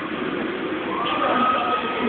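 Ducati Monster's V-twin engine running and revving during a stunt ride, rising about halfway through to a high note that then holds steady.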